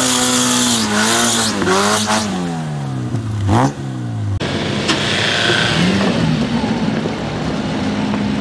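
Small Suzuki 4x4's engine revving up and down as it crawls over rocks, with a sharp rev blip about three and a half seconds in. About four seconds in the sound cuts to another off-road 4x4 engine running at a steadier pitch.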